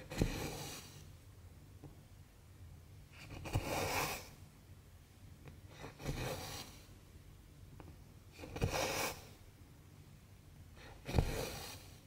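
Needle and cotton embroidery thread pulled through cross-stitch fabric: five short swishes, one about every two and a half seconds, each starting sharply.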